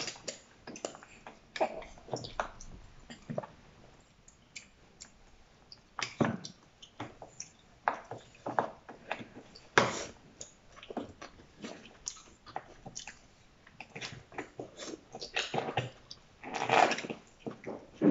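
Noodles being slurped and chewed close to the microphone: irregular short slurps, smacks and clicks, with a longer, louder sound near the end.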